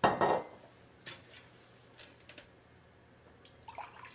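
A short, dull thump of handling on the countertop, then a few faint light clicks. Near the end, water starts pouring from a glass pitcher into a drinking glass.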